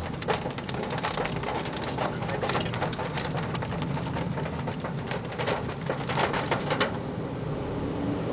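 Hail drumming on the car's roof and windshield, heard from inside the cabin as a dense patter of sharp hits. The hits stop suddenly about seven seconds in as the car gets under an overpass, leaving only the steady hum of the car.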